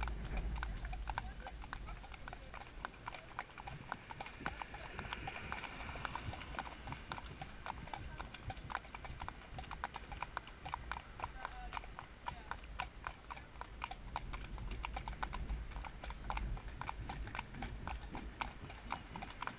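Several horses walking in single file on a tarmac road, their hooves clip-clopping in an uneven, overlapping patter. A low rumble runs underneath, strongest at the start.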